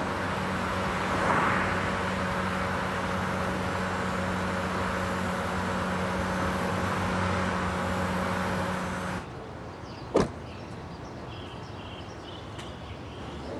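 Steady car driving noise, engine and road, with a low hum. It cuts off after about nine seconds. Then a quieter background and, about a second later, a single sharp knock of a car door shutting.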